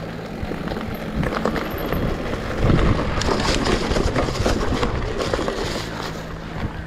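Electric mountain bike riding down a rough enduro trail: tyres on dirt and stones, with the bike clattering over bumps and wind noise on the microphone, busiest in the middle.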